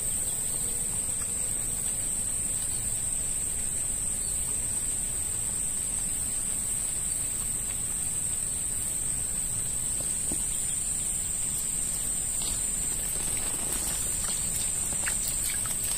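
Steady high-pitched insect chorus, with a few faint ticks and rustles near the end.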